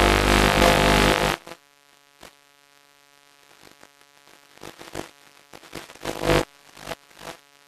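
Audio of an analog FPV video downlink: a steady electronic hum broken by loud rushing noise. The longest burst fills about the first second and a half, then shorter crackles come and go, more often in the second half.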